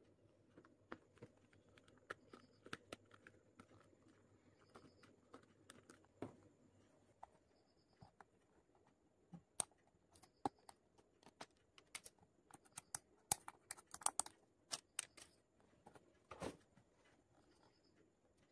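Hands handling a wallpaper-covered cardboard box: quiet, scattered clicks, taps and rustles of paper and card, busiest a few seconds before the end.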